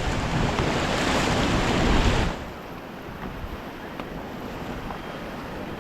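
Ganges river water rushing and splashing around a paddled raft, with wind buffeting the microphone; loud for about the first two seconds, then dropping suddenly to a quieter steady rush.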